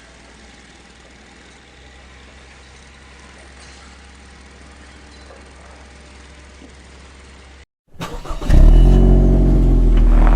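Faint, steady street ambience with a low hum. After a brief cut, a motor vehicle engine starts running very loudly and close by, its pitch shifting slightly, for the last couple of seconds.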